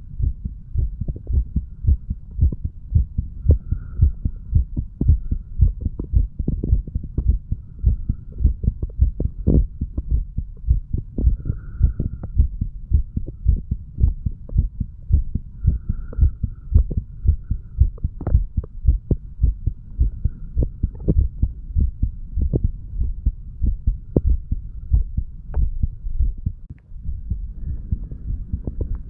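A man's heartbeat recorded at the chest: a steady run of low thumps as the heart valves close with each beat. The owner hears these as valves opening and closing nicely and the heart pumping clearly.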